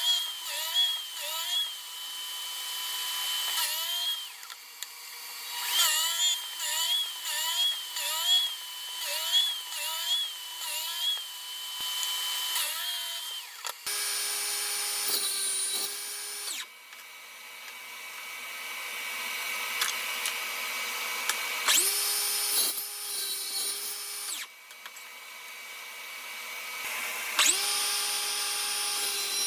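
A small electric power tool's motor running under load, its pitch dipping and recovering about twice a second. From about halfway, a higher-pitched motor is switched on and off three times, each run lasting a few seconds.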